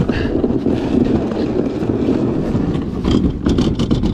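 Wind buffeting the microphone, mixed with rustling and scraping as a fishing kayak is boarded from rocks at the water's edge. A few short knocks come near the end.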